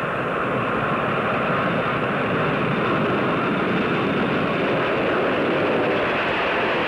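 Boeing 707's four Pratt & Whitney turbojets at takeoff power on a maximum-weight takeoff: a dense, steady jet roar that grows a little louder in the first second or so as the jetliner lifts off and climbs past.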